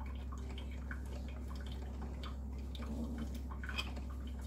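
A person chewing a mouthful of food, with scattered small mouth clicks over a steady low hum.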